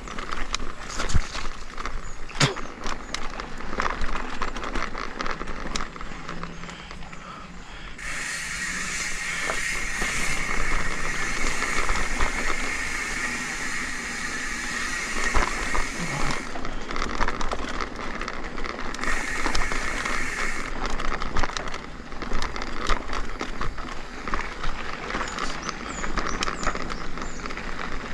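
Mountain bike ridden over rough ground: the frame and parts rattle and click over the bumps along with tyre noise. A steadier hiss comes in about eight seconds in and returns briefly later.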